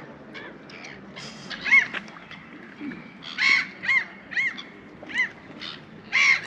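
Gulls calling over open water: a string of short, harsh, arched calls, a few scattered at first and then about two a second from roughly three seconds in.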